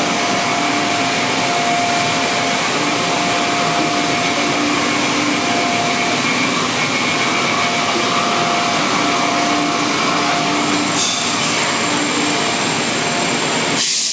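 Steady, loud whoosh of an industrial blower fan, with faint steady hum tones running through it. It cuts off abruptly near the end.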